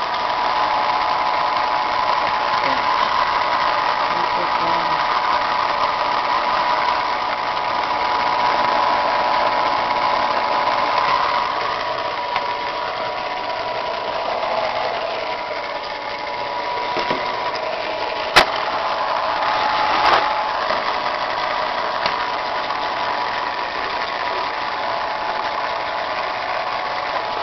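Electric pencil sharpener's small motor running steadily with a whirring hum, with a sharp click about eighteen seconds in.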